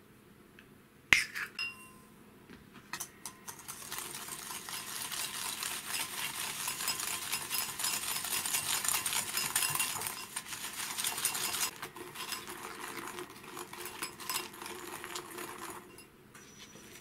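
Wire balloon whisk beating egg yolk and caster sugar in a glass bowl, its wires rapidly clicking and scraping against the glass. A single sharp clink comes about a second in, and the whisking eases after about twelve seconds and stops near the end.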